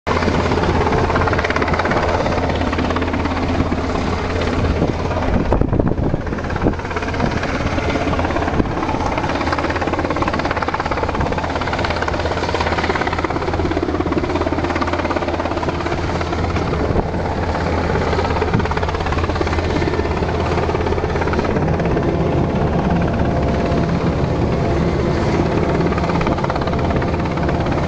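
A loud, steady engine drone with a constant low hum, and a few knocks about six seconds in.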